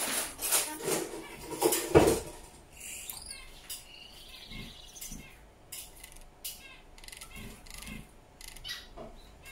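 Gouldian finch singing: a run of soft, high chirps and clicks. Before the song starts there is a burst of clatter with a loud knock about two seconds in.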